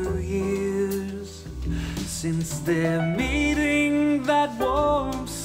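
A song with a singing voice over instruments, played through a pair of JBL 305P MKII studio monitors and recorded by a microphone in the room.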